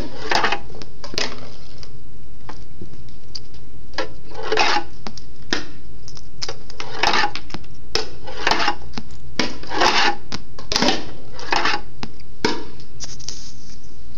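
Steel skateboard bearings clattering and rattling in short bursts, about one a second, as they bounce off a chair and roll through cardboard tubes, with sharp clicks of metal striking in between.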